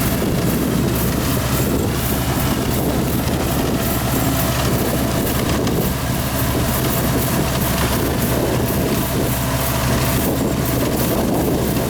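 Yanmar Ee214 combine harvester running steadily while harvesting rice, its engine drone under the clatter and rush of the cutting and threshing works.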